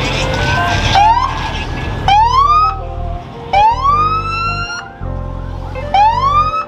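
Siren whoops: a short rising wail repeated every second or two, each climbing and holding briefly, over a music track with deep stepped bass.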